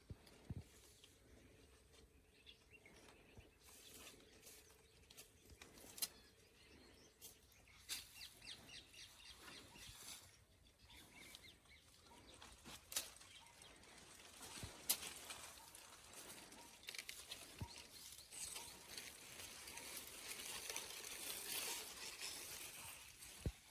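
Quiet outdoor ambience: scattered clicks and rustles over a faint high hiss that swells for a few seconds near the end.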